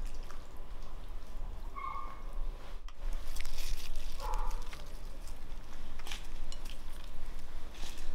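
An animal calling briefly twice, over light rustling and clicking as salad leaves are dropped by hand onto flatbread.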